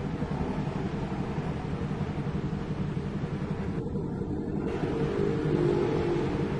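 Mixed road traffic passing: a steady rumble of car, minivan, motorcycle and diesel coach-bus engines with tyre noise.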